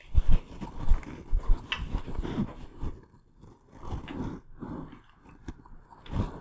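Footsteps on a debris-strewn floor: irregular thuds and crunching underfoot, with the loudest knocks right at the start.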